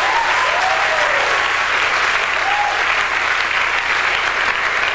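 Live audience applauding steadily after a punchline, with a few voices whooping over the clapping.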